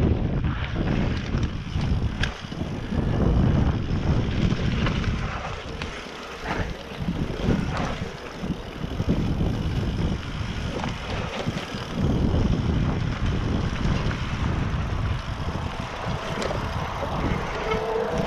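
Wind buffeting the microphone of a bike-mounted GoPro as a Specialized Enduro mountain bike rides fast down a leaf-covered dirt trail. Tyre roar over leaves and dirt is mixed with frequent knocks and rattles from the bike over bumps, and a steady whine comes in near the end.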